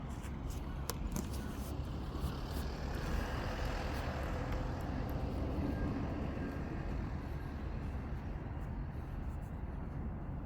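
A motor vehicle passing by, its noise swelling over a few seconds and then fading, over a steady low rumble.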